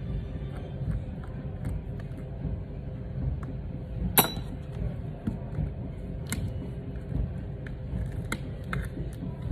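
Sharp click about four seconds in, then a few fainter clicks, as an iPhone XR's screen is pried loose from its frame, over a steady low rumble.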